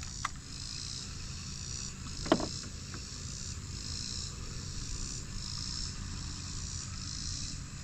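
Insects chirping in an even rhythm, a little more than one chirp a second, over a steady low rumble. A single short, sharp sound stands out about two and a half seconds in.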